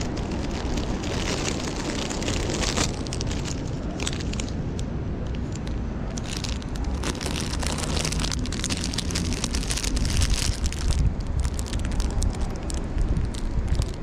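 Plastic bags crinkling and a canvas tote rustling as hands rummage through it and pull out wrapped pastries, over a steady low background rumble.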